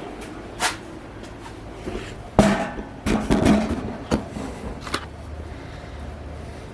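A few sharp knocks and clatters of parts and tools being handled, the loudest about two and a half seconds in with a short run of them just after, over a low steady hum.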